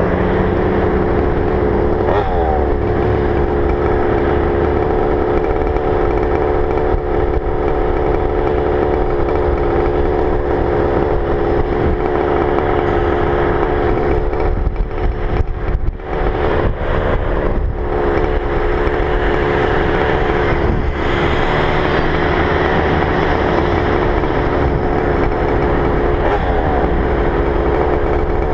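Small two-stroke Goped GP460 engine running hard at high, steady revs, dipping briefly several times about halfway through. It is making an odd sound at wide-open throttle that the rider cannot explain.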